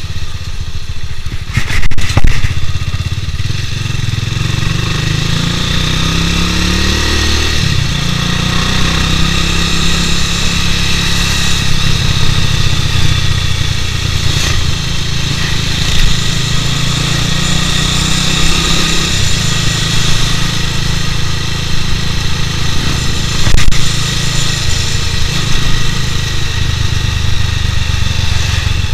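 Bajaj Pulsar 200 DTSI single-cylinder engine running under way, its pitch rising as it accelerates about six seconds in, heard through an action camera's waterproof case. Two sharp knocks, one about two seconds in and one later on.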